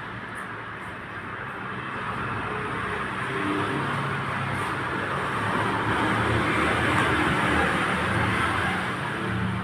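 Steady road traffic noise with a low engine hum, growing louder through the middle and latter part.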